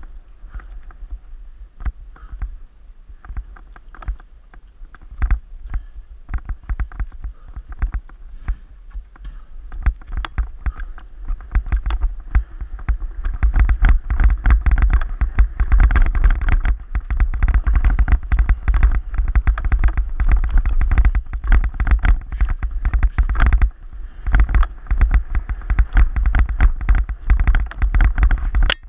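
Mountain bike ridden over rock slabs and a rooty forest trail, heard through a GoPro Hero 3: a constant clatter of knocks and rattles from the tyres and bike over the rough ground, with a low wind rumble on the microphone. It grows louder about halfway through.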